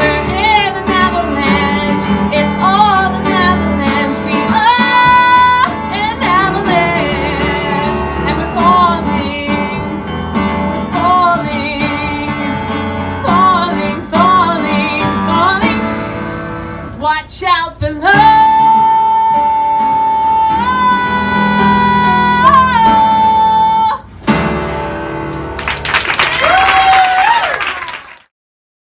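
A woman sings a cabaret show tune with piano accompaniment, holding one long high note for several seconds. After a short break there is a last swell, and the sound then cuts off.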